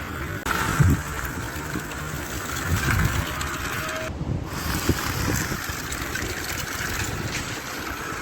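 Homemade cardboard toy bulldozer's 775 DC motor running, with a rough whirring and rattling and a few knocks. The sound changes abruptly twice where the footage is cut.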